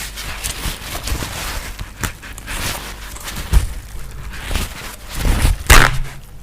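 Close-miked chewing and wet mouth noises while eating, with many small clicks, and a loud sharp noise near the end.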